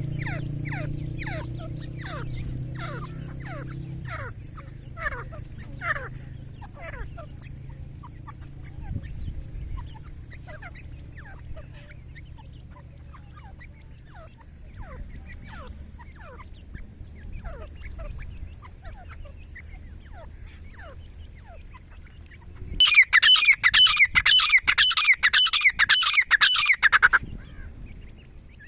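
Grey francolin calling: fainter short falling chirps for the first half, then a loud run of rapid, harsh repeated notes lasting about four seconds near the end.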